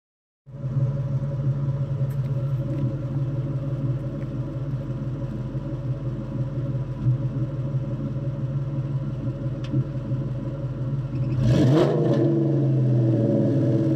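1999 Ford Mustang GT's 4.6-litre V8 idling through Kooks long-tube headers, a Bassani off-road X-pipe and Magnaflow mufflers: a steady, deep exhaust note. About three-quarters of the way through it is revved once, the pitch sweeping up and back down, and it runs louder afterwards.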